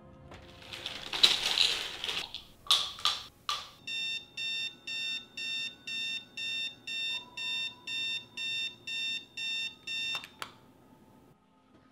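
A swelling rush of noise and three sharp hits, then a digital alarm clock beeping evenly, about twice a second. A click about ten seconds in cuts the beeping off as the alarm is switched off by hand.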